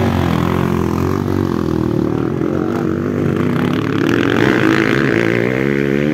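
Motocross dirt bike engine revving hard as the bike accelerates past and away, its pitch rising and falling repeatedly with the throttle.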